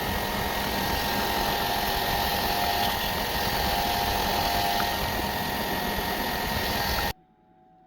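Power grinder running steadily under load against metal, with a high, even whine, then stopping abruptly about seven seconds in.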